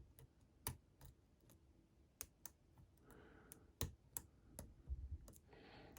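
Faint, irregular clicks of a steel lock pick lifting pins inside a Lockwood V7 lock under light tension.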